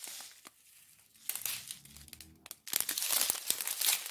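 Small plastic zip bags of diamond-painting resin drills crinkling as they are handled, with a few light clicks at first and the crinkling getting louder and busier over the last second and a half.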